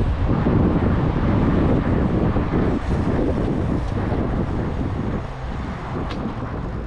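Wind buffeting the microphone of a camera riding along on a moving bicycle: a loud, rough, fluctuating rumble that eases a little about five seconds in.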